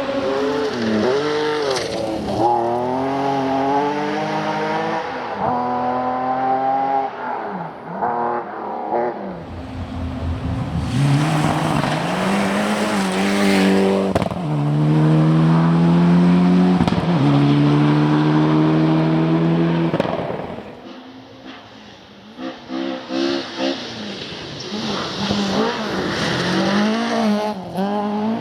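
Rally car engine at full stretch: the revs climb and drop again and again through gear changes, then hold high and steady before fading about three quarters of the way through. Engine sound picks up again near the end.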